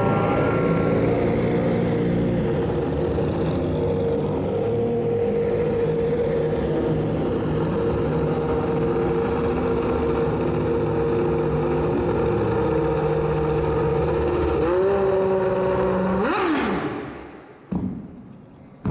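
Racing car engine running at a steady high pitch, with other engine notes gliding up and down beneath it. About sixteen seconds in there is a loud rush falling in pitch, then the sound drops away sharply.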